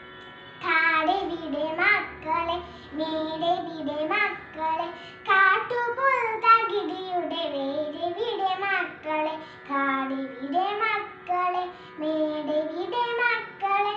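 A child singing a Malayalam poem in a melodic, phrase-by-phrase tune, with held and gliding notes and short breaths between lines.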